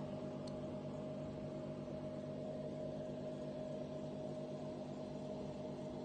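Aquarium pump running with a steady electrical hum over a soft, even hiss.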